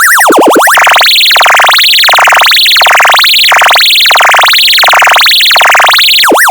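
Loud electronic siren tone from an audio function generator, sweeping up and down in pitch. It opens with a fast yelp, changes under a second in to a slower, higher wail that rises and falls about every 0.8 s, and switches back to a fast yelp near the end.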